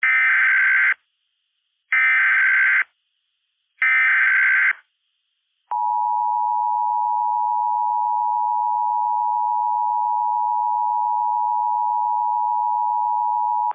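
Emergency Alert System SAME header: three one-second bursts of screeching digital data tones about a second apart, then the EAS attention signal, a steady two-tone beep held for about eight seconds, announcing an emergency broadcast message.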